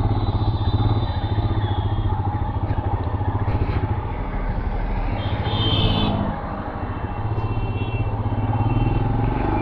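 Royal Enfield Scram 411's 411 cc single-cylinder engine running steadily as the motorcycle rides off at low speed, easing off briefly about two-thirds of the way through.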